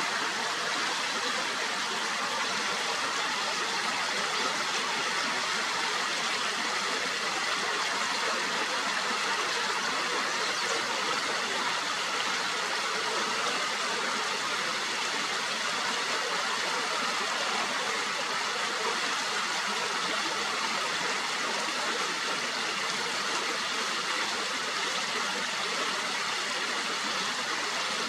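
Steady, even rushing noise with no distinct bird calls standing out.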